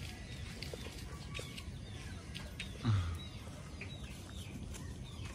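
Hens and other birds: scattered short, high chirps and peeps, with one brief low call about three seconds in.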